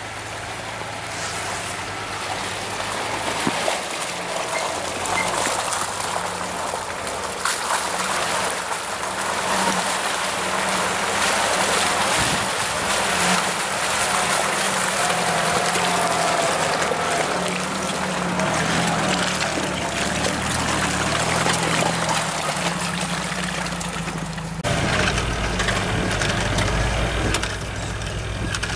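Off-road vehicle engine running and revving up and down, under a steady rushing noise. Near the end the rushing eases and a deep, low engine rumble takes over.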